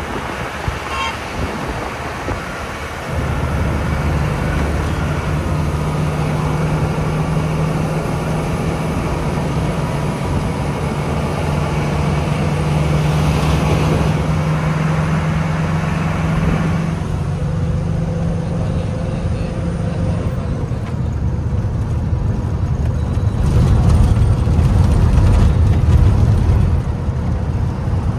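A truck on the move: steady engine drone and road noise heard from inside the cab. The engine's hum comes in more strongly about three seconds in, and there is a heavier rumble near the end.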